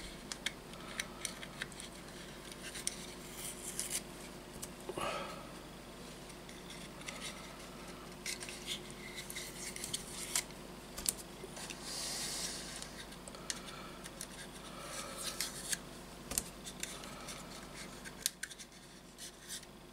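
Masking tape being peeled in strips off a plastic model-kit fuselage: soft ripping hisses and a scatter of small crackles and clicks as the tape lets go and the plastic parts are handled.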